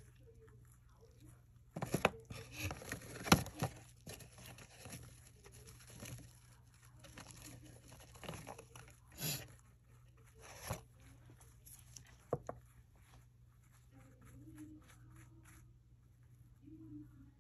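Scattered light clicks, taps and crinkly handling noises as a small paintbrush works powder into a silicone resin mold, with a cluster about two seconds in and single clicks after, over a faint steady hum.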